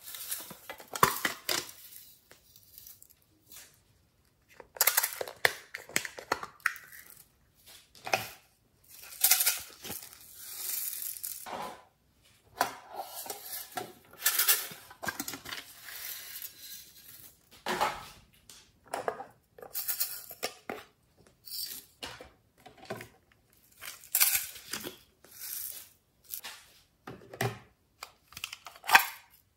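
Hands handling pencil cases and a plastic pencil sharpener: irregular clicks, clatters and rustles in short bursts with brief pauses between them.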